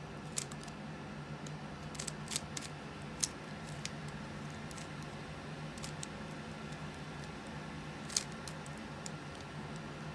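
Rubik's cube being turned by hand: scattered sharp plastic clicks, a few close together around two to four seconds in and one louder near the end, over a steady low hum.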